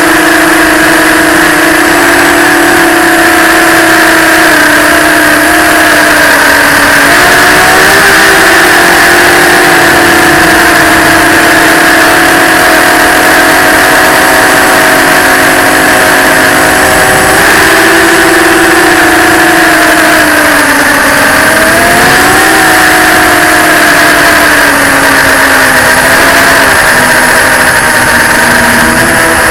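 FPV quadcopter's electric motors and propellers buzzing at a steady whine. The pitch rises and falls as the throttle changes, stepping up about a quarter of the way in and again past halfway, then dipping and climbing back about two thirds of the way through.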